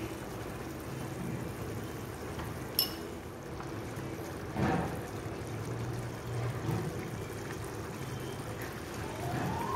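Prawn and tamarind gravy simmering in an open metal pan on a gas stove, a soft steady bubbling over a low hum. There is a small click about three seconds in and a brief knock near the middle.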